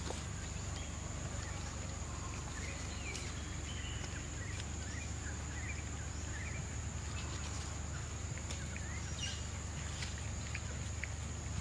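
Outdoor ambience: a steady high-pitched insect drone over a low rumble, with scattered short, faint rising chirps.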